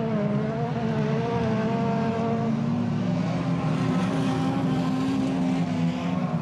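Engines of several near-stock autocross cars racing on a dirt track, their notes overlapping over a haze of noise. One wavering engine note drops out about two and a half seconds in, while a steadier lower note carries on.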